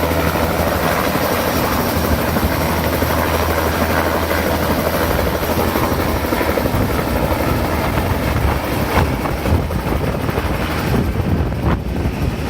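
Helicopter running: a loud, steady sound of rotor and engine, its low hum turning more uneven and choppy about halfway through.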